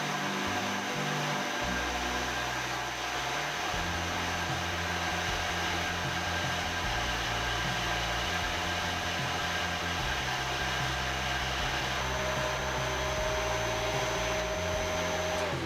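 Knee mill running steadily while drilling holes in a steel foot plate: an even motor whine with several constant tones, cutting off just before the end.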